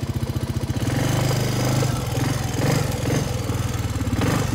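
2005 Honda FourTrax ATV engine idling with an even pulse, then throttled up about a second in and running louder and higher. It eases off briefly near the end.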